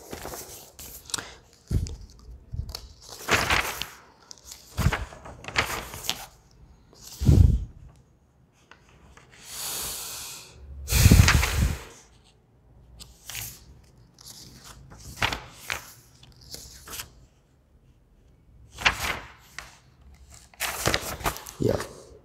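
Pages of a thick paperback textbook being leafed through: irregular paper rustles and flaps, one every second or two, with short quiet gaps between.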